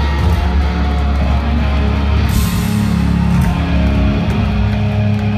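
Rock band playing loud and live: electric guitars over drums.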